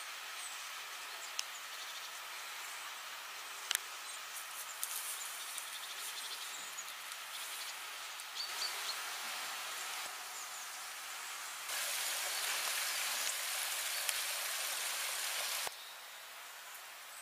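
Outdoor ambient noise: a steady hiss with a few faint high chirps and small clicks. The hiss grows louder for about four seconds past the middle, then drops back suddenly.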